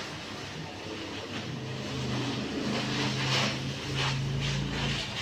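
A steady low motor hum over a noisy background, a little louder from about two seconds in, with a few faint scuffs.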